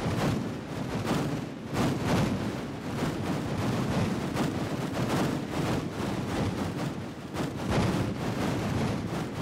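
Computer-generated battlefield soundscape of gunfire and explosions: a dense rumble of many distant, soft shots, with a few closer, louder and more detailed shots standing out. The particles are spread over a mile-wide rectangle, so most of the sounds are far away and only a few are near.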